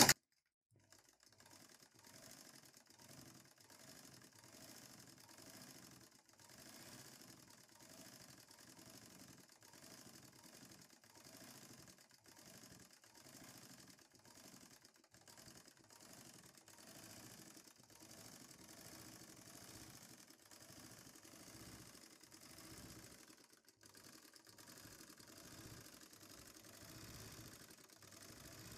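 Ordinary straight-stitch tailor sewing machine running fast and faint during free-motion embroidery, its needle making a rapid clicking rhythm that swells and eases every second or two.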